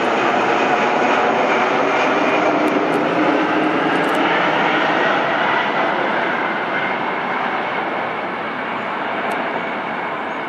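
McDonnell Douglas MD-11 trijet passing low overhead on landing approach, gear down. The steady rushing jet-engine noise slowly fades as the airliner moves away.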